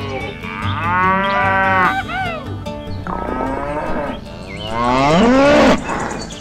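Cattle mooing: two long moos, about a second and a half and two and a half seconds long, with a short call between them.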